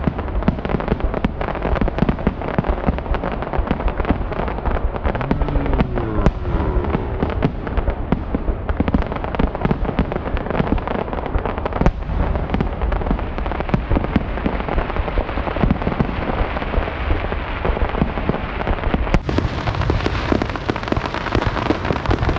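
Fireworks going off: a dense, unbroken crackle of many small rapid pops and bangs.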